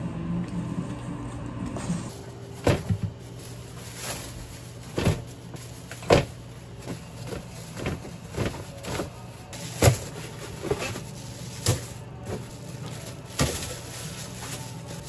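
Plastic-wrapped sleeves of disposable cups being pushed and stacked onto a shelf: irregular knocks and plastic crinkles, roughly one every second or so, over a low steady hum.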